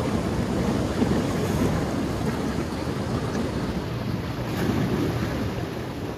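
Sea surf washing and swirling through a channel between shoreline rocks, with wind buffeting the microphone.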